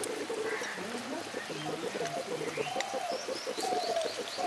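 Doves cooing, with a few short high chirps of small birds near the end.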